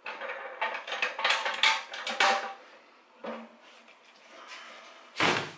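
Wing-nut clamps on a steel pressure-pot lid being undone and swung aside, clinking and clanking against the pot, then the lid coming off. A single louder knock near the end.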